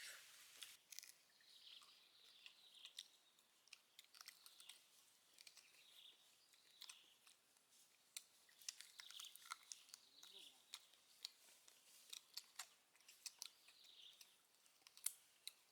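Faint, irregular crisp crunches and sharp clicks from crispy deep-fried chicken feet.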